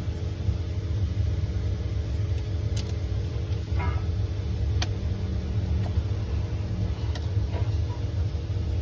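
Steady low rumble and hum, with a few light clicks as a ring terminal and nut are worked onto a battery's terminal post.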